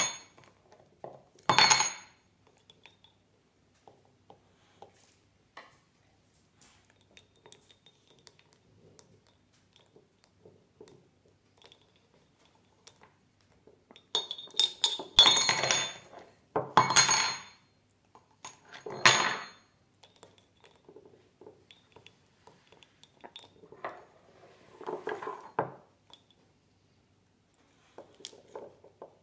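Metal teaspoon clinking against the inside of a ceramic mug as it is stirred, in several short bursts of rapid clinks with quiet gaps between. The loudest bursts come in a cluster around the middle.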